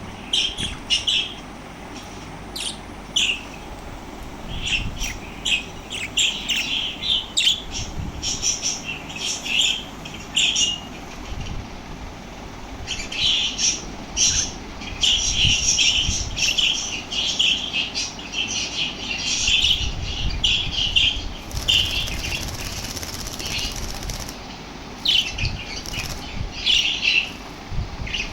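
Small parrots chirping and chattering in quick, repeated high calls, with a short lull about halfway through.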